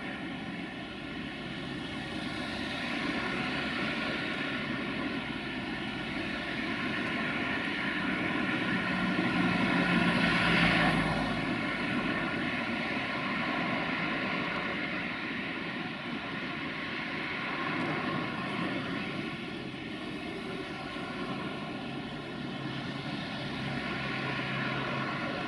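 Road traffic passing close: car and van engines and tyres, with one vehicle passing loudest about ten seconds in. Near the end comes the deeper diesel drone of a Volvo FH16 heavy-haulage truck pulling up slowly.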